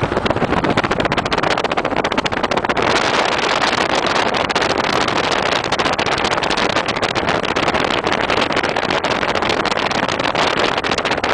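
Car travelling at highway speed: a loud, steady rush of wind and road noise, with a fine crackle of wind buffeting the microphone throughout.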